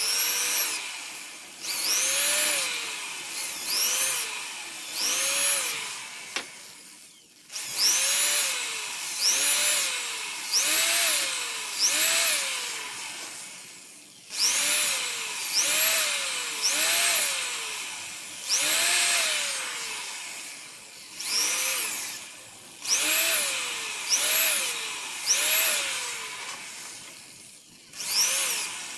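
Corded electric hand drill boring a row of small holes into a thin wooden frame strip, run in short trigger bursts. Each burst the motor whines up in pitch and winds down again, about one a second, with a few short pauses between runs.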